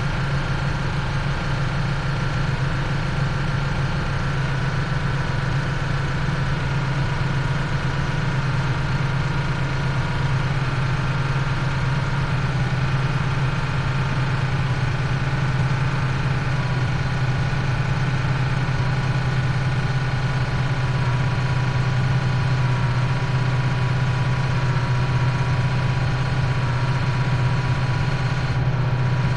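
Towboat's engine running steadily under load while towing a large cabin cruiser, a constant low hum with a few higher steady tones over it.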